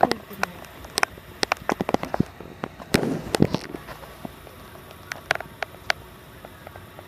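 Irregular sharp clicks and pops, several a second at times, with a short rustle-like patch partway through.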